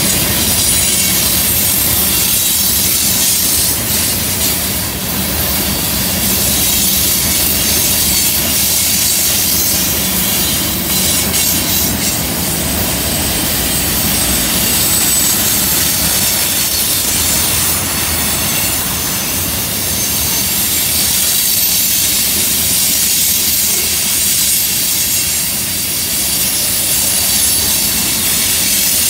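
Freight train tank cars and covered hopper cars rolling steadily past on a curve, a continuous rumble and hiss of steel wheels on rail. A faint high squeal from the wheels on the curve comes and goes.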